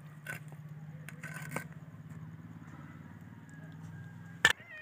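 A steady low mechanical hum throughout, with light clicks and scrapes as the cooked tandoori chicken pieces are handled on a ceramic plate, and one sharp, loud click about four and a half seconds in.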